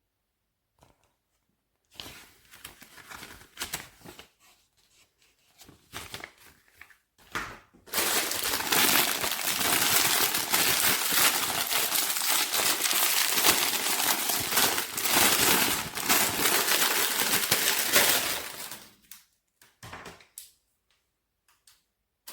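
Crinkling and rustling of handled packaging material, in irregular bursts at first, then a continuous, louder crinkle for about ten seconds before it stops.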